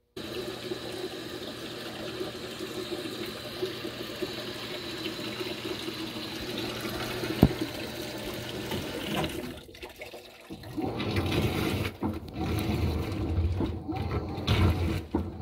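Washing machine running its clean washer cycle, water running and splashing in the tub over a steady hum. A single click comes about seven seconds in; after a short dip near ten seconds in the water sound grows louder and more uneven.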